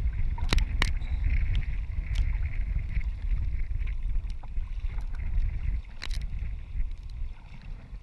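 Wind buffeting the microphone of a bow-mounted camera on a sea kayak, over the hiss and slap of choppy waves along the hull. A few sharp clicks stand out, two near the start and one about six seconds in.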